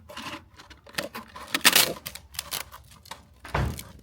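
Sandpaper sheet rustling and scraping as it is worked into the clamp slot of a cam lock drum floor sander, with a run of clicks and taps. A louder rustle comes about two seconds in and a dull thump near the end.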